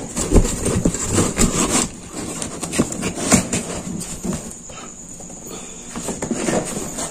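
Irregular knocks, clicks and rustles of hands handling a break-barrel-style airgun and its cardboard box, with a thin steady high-pitched whine in the background.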